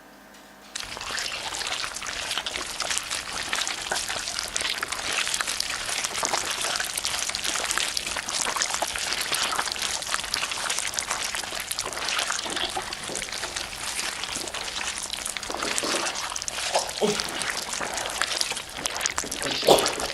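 Dense, steady crackling sizzle that starts abruptly about a second in and runs on evenly, with a few louder pops near the end just before it cuts off.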